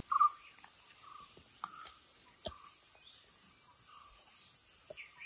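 Steady high-pitched drone of forest insects (cicadas and crickets), with soft short bird calls now and then and a few faint taps.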